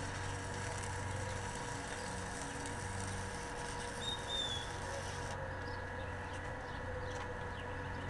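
DC stick-welding arc crackling and hissing as the electrode burns on the steel bar, fed by a Harbor Freight DC inverter welder; it cuts off suddenly about five seconds in when the arc is broken.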